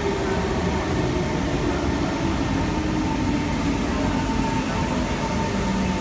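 Singapore MRT train pulling into the platform, a steady rumble with a motor whine that falls in pitch as it slows, over a steady higher tone.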